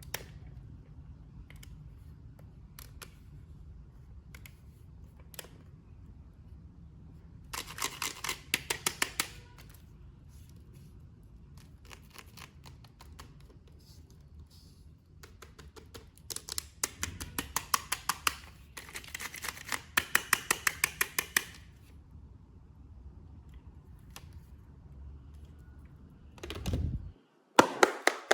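Quiet handling of a toy and its plastic packaging, broken by three runs of rapid, even clicking or snipping of about two seconds each. A sudden loud burst comes near the end.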